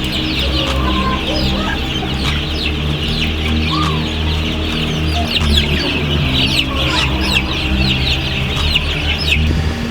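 A flock of chickens calling together: a dense, continuous chorus of short high peeps with an occasional cluck.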